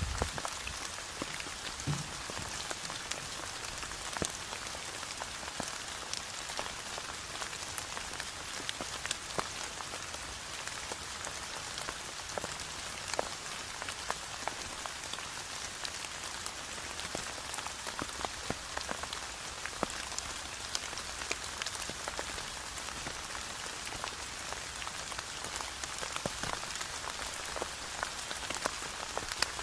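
Steady rain falling, with many individual drops pattering sharply on nearby surfaces.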